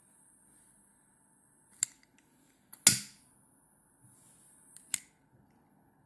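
Faint hiss of a lighter flame singeing a pheasant feather held in a metal wing-burner, with a sharp click about two seconds in, a louder knock about three seconds in, and another click near the end.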